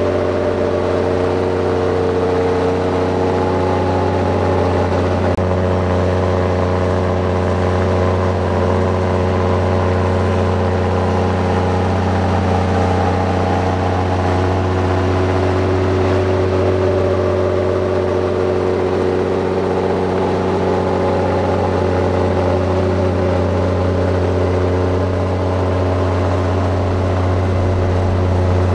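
Heavy diesel engine of earthmoving machinery running steadily: a continuous low hum whose pitch shifts only slightly now and then.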